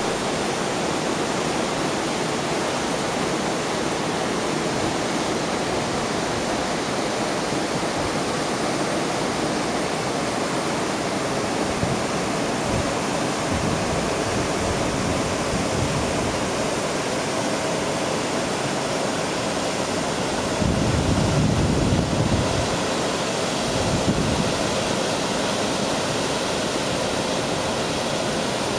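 A waterfall rushing steadily over rock into a pool, with a brief low rumble for a couple of seconds about two-thirds of the way through.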